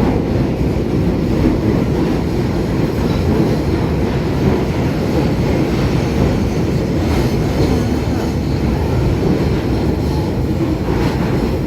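London Underground Northern line train, 1995 Tube Stock, running through the tunnel: a loud, steady rumble of wheels on rail with a few faint clicks.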